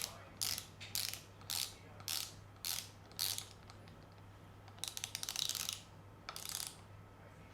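Hand ratchet wrench clicking as a bolt on a mountain bike is turned: about seven short ratcheting strokes, roughly two a second, then a longer run of fast clicks about five seconds in and a brief one just after.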